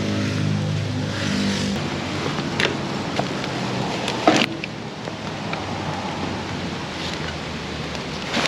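A car passing on a wet street, its engine fading out within the first two seconds, over steady rain hiss. A few sharp clicks follow, the loudest about four seconds in.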